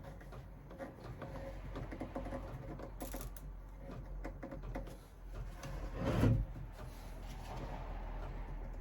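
A clamp being tightened across a glued wooden chair's legs to pull the joints tight: a run of small clicks and rubbing, with a louder clunk about six seconds in.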